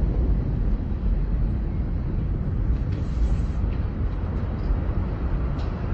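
Steady low rumbling noise on a phone's microphone in the aftermath of the Beirut port explosion, with no distinct blast or impact in it.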